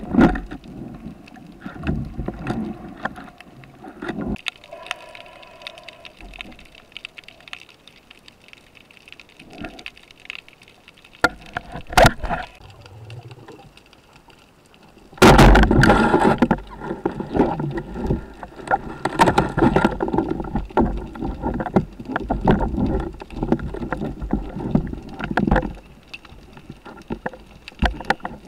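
Underwater camera noise as a freediver swims: water rushing and knocking against the housing with fin kicks. It goes quiet for about ten seconds after the first few, apart from one sharp click, then turns loud and busy again from about halfway through.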